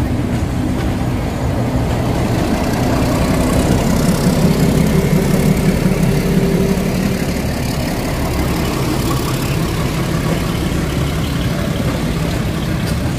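A heavy engine running steadily, growing louder about four to six seconds in and then easing back.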